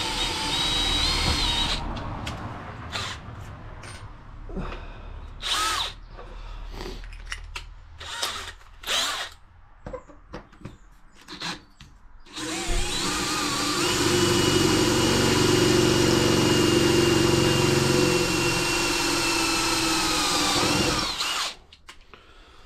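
Cordless drill boring a hole through a piece of metal angle. There is a short run at the start, several brief trigger bursts, then a steady run of about eight seconds that winds down and stops near the end.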